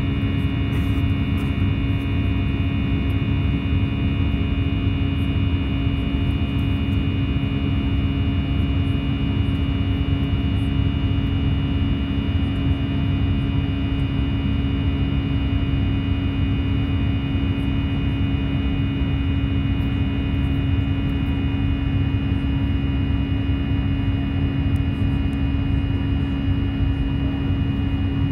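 Airbus A320 cabin noise beside the wing-mounted jet engine during the climb-out: a steady, unchanging engine rush with a constant hum and several steady high whining tones.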